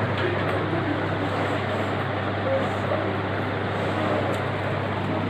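Steady background din with a constant low hum underneath and indistinct voices mixed in.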